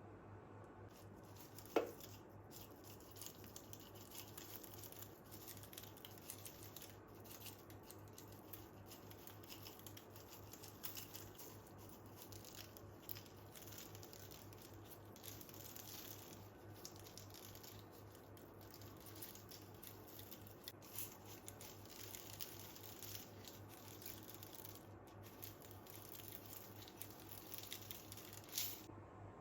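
Quiet rustling and handling noises, like paper or packaging being worked by hand, with a sharp knock about two seconds in and another near the end, over a faint steady hum.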